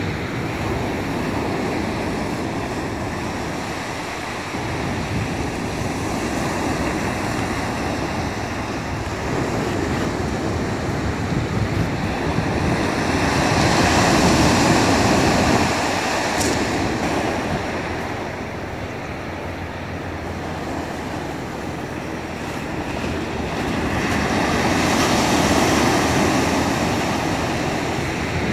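Ocean surf breaking and washing up a pebble beach, a steady wash that swells louder twice, about halfway through and again near the end, as bigger waves break.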